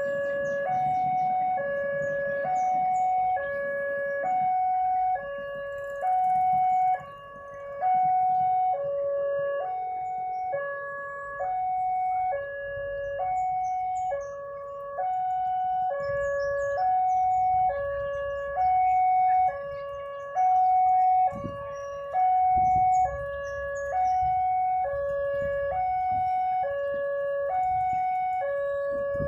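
Railway level-crossing warning alarm sounding its two-tone signal, alternating steadily between a low and a high tone each held about half a second: the crossing is closed for an approaching train. A low rumble of idling traffic runs underneath.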